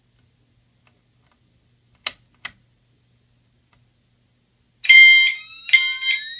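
Two sharp clicks about two seconds in, then a Pyrotronics MTL MultiTone horn set up as a single-stroke chime sounds two short, loud strokes near the end, each ringing a moment. This is the fire alarm panel's simple zone code, signalling that the pull station's zone has gone into alarm.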